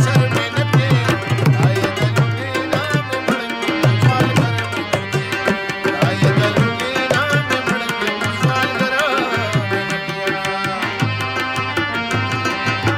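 Harmonium playing a melody over a steady hand-drum rhythm, the drum's deep bass strokes bending in pitch.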